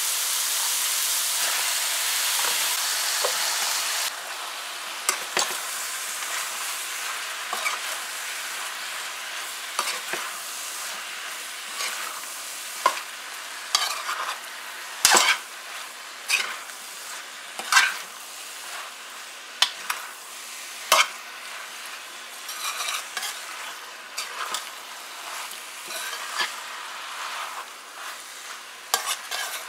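Chicken frying in curry paste in a nonstick pan, sizzling loudly; about four seconds in the sizzle drops as cubed squash goes in. A metal spoon then knocks and scrapes against the pan again and again as the chicken and squash are stirred.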